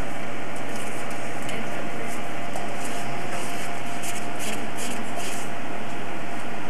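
Paper adding-machine tape rustling and crackling in someone's hands in short scattered bursts, over a steady background hiss and low hum.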